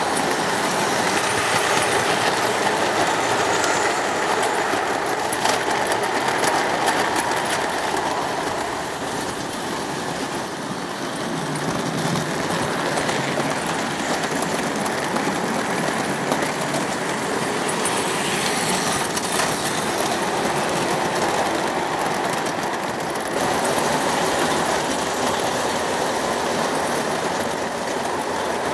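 O gauge model trains running round a layout: a steady whirr and rumble of metal wheels on metal rails, with faint clicks over the track, the level dipping and rising a little as trains pass.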